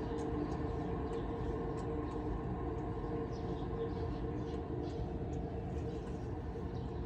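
A car's worn wheel bearing howling while driving: a steady drone of a few held tones over low road rumble, the sign of a failing bearing.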